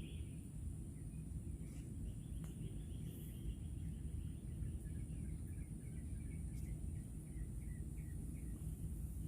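Birds chirping outdoors: a fast, high trill about two seconds in, then a string of short, falling chirps, over a steady low rumble of ambient noise.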